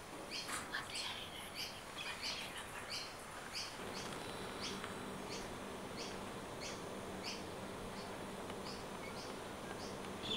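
Outdoor ambience: a short, high chirp repeated evenly about twice a second, with other scattered chirps over the first few seconds. A faint low steady hum comes in about four seconds in.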